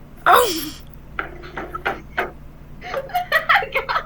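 A short cry of "oh", then scattered clinks and knocks of kitchen dishes and utensils amid brief voices.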